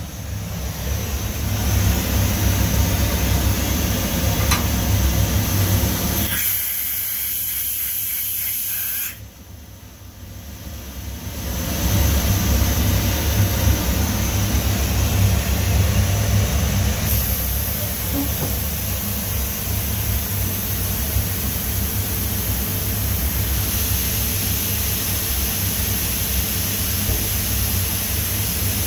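Hwacheon G1 graphite machining center running, a steady low hum with air hiss on top. The noise drops away for about two seconds around nine seconds in, then comes back.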